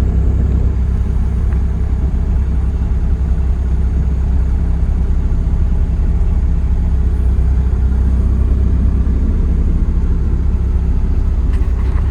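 Kubota KX040 mini excavator's diesel engine running steadily at an even speed, a deep constant rumble. A few faint clicks come near the end.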